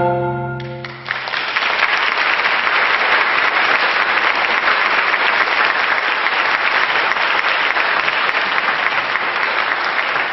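The final chord of a marimba quartet rings out and dies away over about a second, then an audience applauds steadily.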